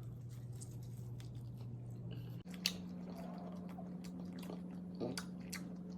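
Quiet wet chewing and lip-smacking on sauce-covered buffalo chicken wings, with scattered small sticky clicks and one sharper click about two and a half seconds in, over a steady low hum.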